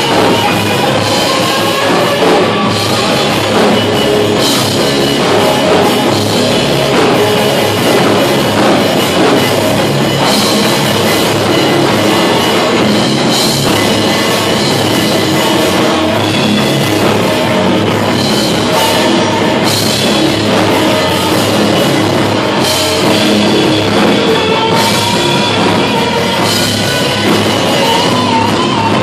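Live rock band playing loudly: distorted electric guitars, bass and a drum kit with cymbal crashes.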